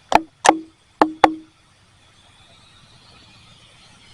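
Four sharp knocks, each with a short ringing tone, in two close pairs about half a second apart.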